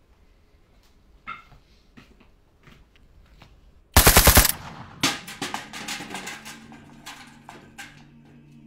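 A short burst of automatic rifle fire, about eight rapid shots in half a second, about four seconds in. Fainter sharp cracks and rattles follow and fade away. A few light metallic handling clicks come before the burst, and low steady music tones rise near the end.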